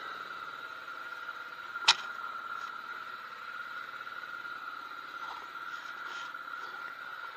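Yamaha V Star 650 V-twin engine idling, heard faintly and muffled beneath a steady high-pitched whine. A single sharp click stands out about two seconds in.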